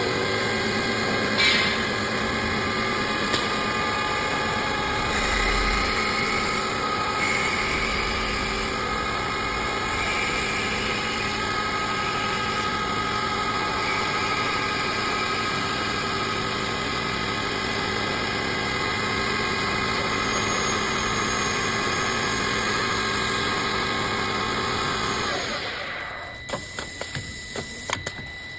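Small CNC woodworking lathe with automatic feed running: a steady machine whine with several steady tones over cutting noise as it turns and drills wood. Near the end the running sound dies away, leaving a few sharp clicks and knocks.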